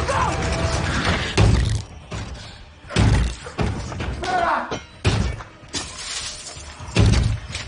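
Film sound effects: four heavy thuds about two seconds apart, as of blows against a door, with glass cracking and shattering.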